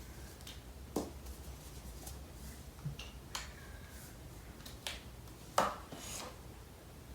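Scattered light clicks and rubbing as a USB keyboard's cable and plug are handled and pushed into a Lightning to USB adapter; the sharpest click comes about five and a half seconds in.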